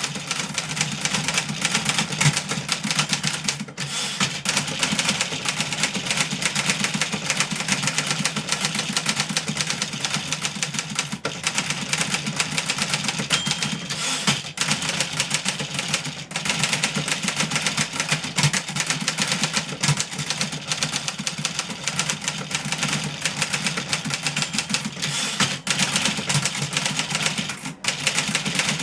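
Fully serviced 1963 Remington Model 11 portable typewriter being typed on fast: a dense, steady stream of key strikes, with a few brief pauses.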